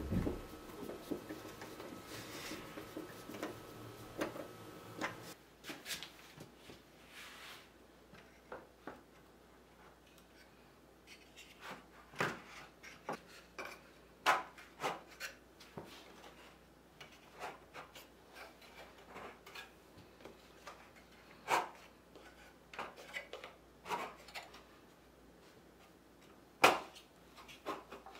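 Light scraping of a hand screwdriver turning a small screw into a brass hinge plate for about five seconds. Then scattered sharp wooden clicks and knocks as the thin pine dividers of an interlocking grid are handled and pressed into a case frame, with the loudest knock near the end.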